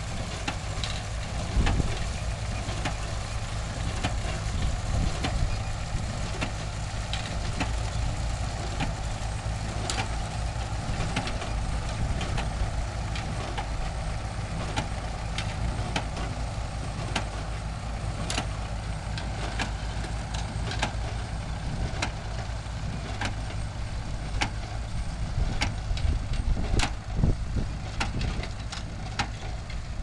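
Tractor engine running steadily while driving a Massey-Harris-Ferguson 701 pick-up baler, whose plunger knocks about once a second as it packs hay into bales. The knocking gets louder for a few seconds near the end.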